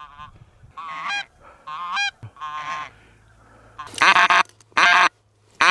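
Goose honking: a few fainter honks, then louder, closer ones from about four seconds in.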